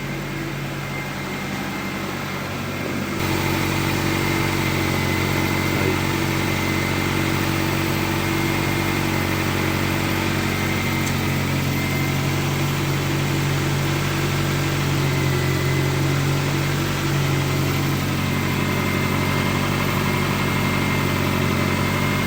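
Honda CR-V engine idling steadily, its exhaust now leaving through the tailpipe with the catalytic converter gasket leak welded shut. The sound gets louder about three seconds in, then holds even.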